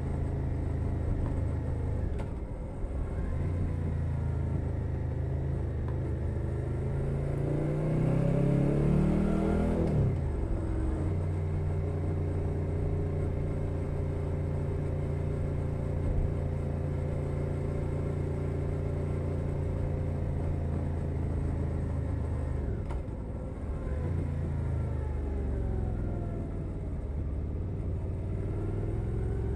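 2021 Suzuki SV 650's 645 cc V-twin through a Leo Vince Nero exhaust, riding along: the revs climb for several seconds to a sharp upshift about ten seconds in, then it cruises steadily; past the two-thirds mark the throttle closes and the revs fall away before it settles again.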